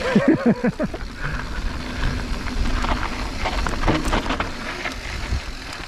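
Mountain bike rolling down a dry dirt singletrack: wind buffeting the microphone, tyres crunching over dirt and loose rock, and scattered clicks and rattles from the bike. A short warbling tone sounds in the first second.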